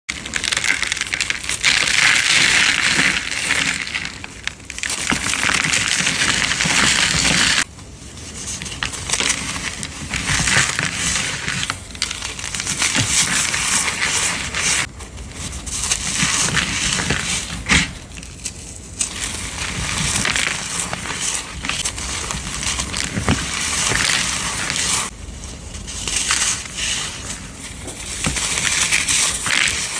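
Crunching and crumbling of a brittle powdery block being crushed, in dense stretches a few seconds long with brief pauses between them.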